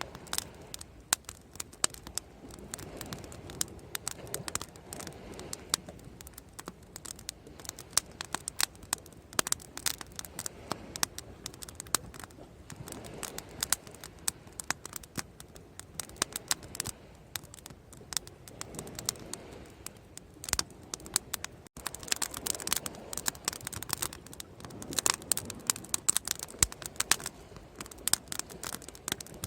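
Wood fire crackling and popping, with dense, irregular sharp snaps that come thickest near the end, over a soft rushing that swells and fades every few seconds.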